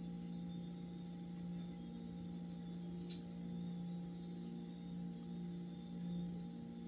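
A steady hum made of several constant tones, with one faint short tick about three seconds in.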